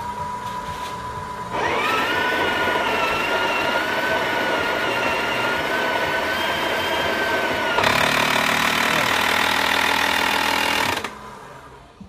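Breville Oracle Touch BES990's built-in burr grinder running on manual grind. A faint steady whine comes first, and about a second and a half in it turns loud as the beans are ground, with a wavering whine over the grinding noise. The sound changes about eight seconds in and stops about a second before the end; the repairer then judges the grinder itself to be at fault.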